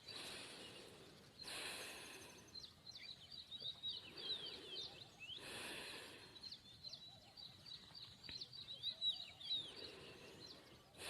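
Small birds chirping faintly in the background, with slow deep breaths every few seconds, each a soft rush of air.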